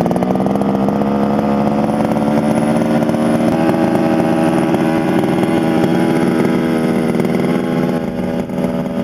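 Small two-stroke petrol engine of a 1/5-scale RC truck running steadily, its pitch creeping up over the first second and then holding.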